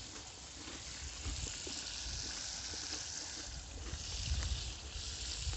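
Wind gusting on the microphone, an uneven low rumble, over a steady outdoor hiss.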